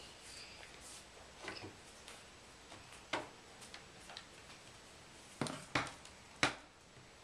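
Scattered light clicks and taps of plastic Play-Doh tools being handled against a wooden tabletop, with three sharper clicks close together near the end.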